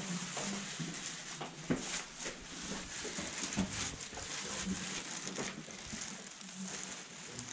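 Background bustle with scattered footsteps and small clicks, and faint distant voices murmuring.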